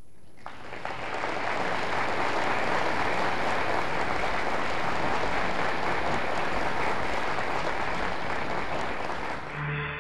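Audience applauding. The clapping builds up over the first second and then holds steady. Near the end it fades out as a short burst of music comes in.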